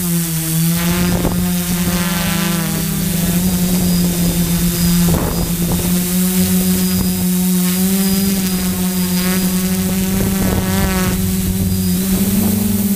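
DJI F450 quadcopter's motors and propellers buzzing steadily as it climbs, heard from the camera on the airframe. The pitch steps up slightly near the end as the throttle is raised.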